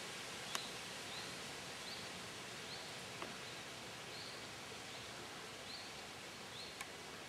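Faint outdoor ambience: a steady soft hiss with a short, high chirp repeating evenly about every 0.7 s, and a couple of faint clicks.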